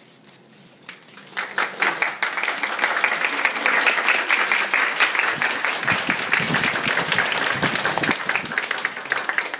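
Audience applauding, breaking out about a second in and then holding steady as a dense clatter of many hands clapping.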